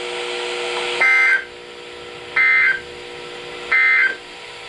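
Weather radio SAME end-of-message code: three short bursts of screechy two-pitch digital data tones, about a second and a half apart, marking the end of the alert broadcast. A steady low hum sounds underneath until the first burst.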